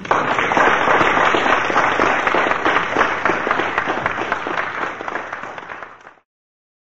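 Audience applauding: dense, steady clapping for about six seconds, easing off slightly before it cuts off suddenly.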